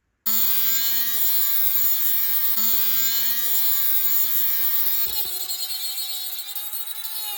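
Power grinder grinding the remains of a worn kickstand rivet flush, a loud steady whine with a hiss of metal on abrasive. About five seconds in, the pitch changes and begins to waver.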